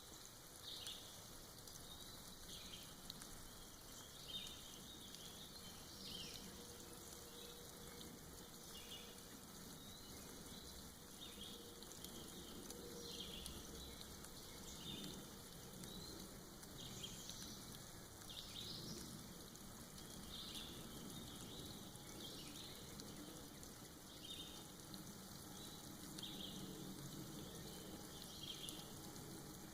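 Soft forest rain falling and dripping off moss, a faint steady hiss, with short bird chirps every few seconds.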